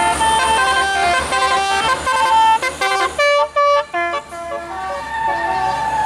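Tour bus telolet musical air horn with roof-mounted trumpets, playing a fast tune of short stepped notes. The notes are loudest with brief gaps around three to four seconds in, then softer toward the end, over the bus's engine running.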